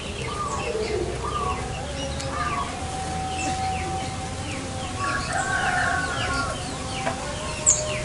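Birds calling: a rooster crowing among many short chirps from small birds, with one long held crow note a few seconds in.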